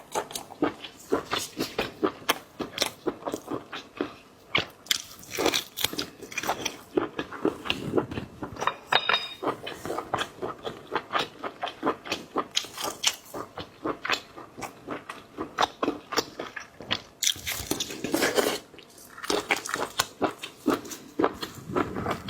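Close-miked chewing and biting of seafood: a steady run of wet, irregular crunches and mouth clicks, with a louder, busier stretch near the end.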